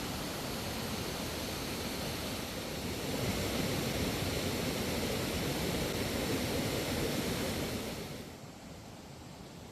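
Rushing water of a waterfall: a steady hiss that grows louder about three seconds in and drops off sharply near the end.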